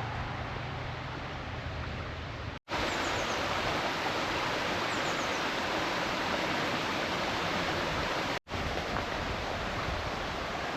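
Rushing water of a stream or river: a steady, even hiss that cuts out for an instant twice.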